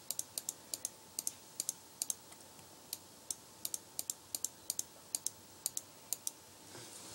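Rapid clicking at a computer, keys or buttons pressed and released in quick pairs about three to four times a second, stopping about a second before the end. A faint steady tone runs beneath.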